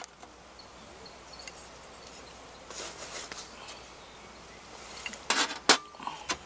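Quiet outdoor ambience with faint insects. A little after five seconds in, a few sharp clinks and knocks as metal camp cookware is handled.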